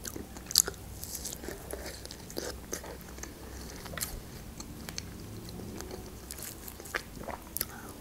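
Close-up eating sounds of a person biting into and chewing fresh strawberries: a string of short clicks and mouth smacks, the sharpest about half a second in.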